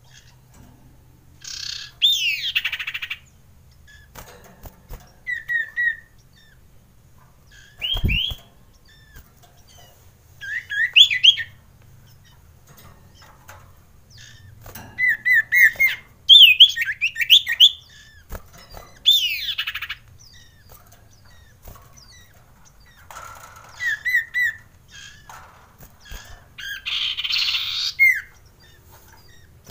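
Male common iora (cipoh) calling in bursts: quick runs of short rising whistled notes, longer downward-sliding whistles, and a harsh rasping call near the end. It is the kind of male iora song used to provoke other males. One low thump about eight seconds in.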